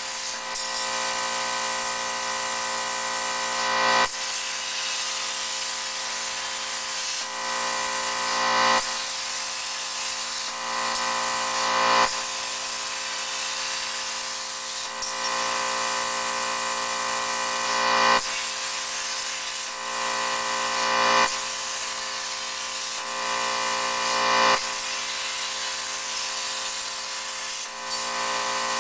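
CNC plasma cutter cutting steel plate: a steady hiss of the plasma arc over the machine's whine. It swells and then drops off sharply about every three to six seconds as the torch works through the pattern.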